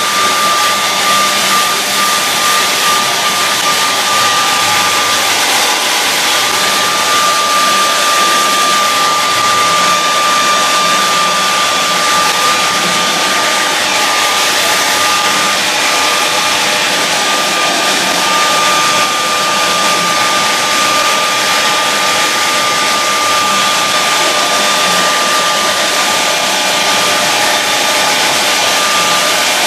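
Handheld hair dryer running steadily, blowing on a wet acrylic-painted canvas to dry it. It makes an even rush of air with a thin, constant whine over it.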